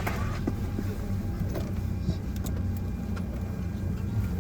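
Steady low rumble of a Boeing 767-300ER, heard from inside the passenger cabin, with a few light clicks and knocks.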